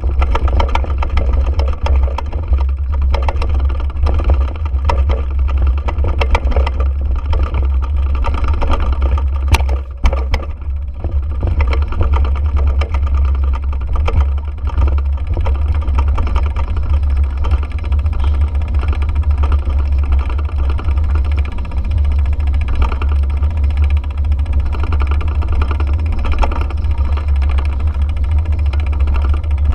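A vehicle engine running steadily while moving slowly, under a heavy, constant low rumble; a single sharp click a little under ten seconds in.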